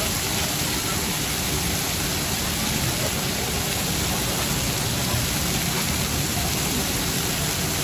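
Dozens of chicken steaks sizzling steadily on a large gas flat-top griddle.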